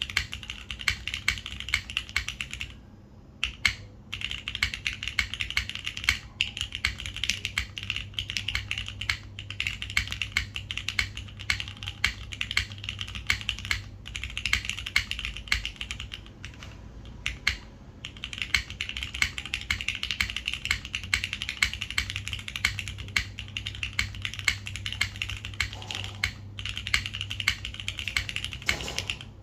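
Continuous typing on a Neo60 Core 60% mechanical keyboard with an aluminium plate, lubed and filmed Cherry MX Hyperglide Black linear switches and GMK doubleshot ABS keycaps: a dense stream of keystrokes, broken by short pauses about three seconds in and again around sixteen to eighteen seconds.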